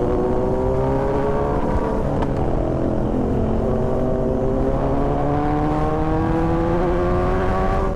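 Kawasaki Z900's inline-four engine breathing through an Austin Racing aftermarket exhaust, pulling under steady acceleration, its pitch climbing slowly, with a short break about two seconds in.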